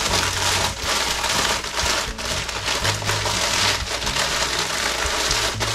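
A bag of Nacho Cheese Doritos being crushed by hand: a continuous crackle of tortilla chips breaking inside the crinkling foil bag.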